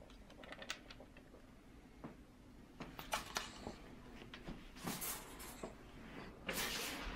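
Faint handling noise: scattered light taps and clicks, with a few short rustles about three, five and seven seconds in.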